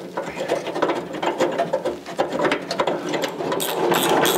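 Door hinge bolts being run in with a hand-held tool: a quick run of mechanical clicks that grows sharper and more frequent about three seconds in.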